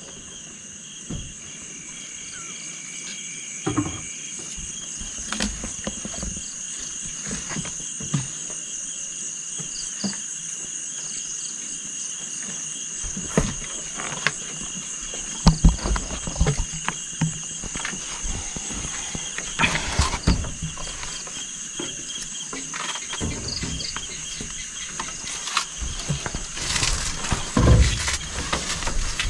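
Steady high buzzing chorus of night insects, with scattered knocks, bumps and rustles from people climbing a wooden ladder into a tree platform, these growing denser and louder in the second half.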